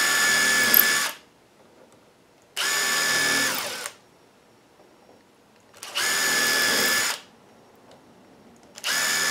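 Cordless impact driver with a small drill bit, drilling pilot holes into PVC trim board. It runs in four short bursts of about a second each, at a steady high whine, with pauses between.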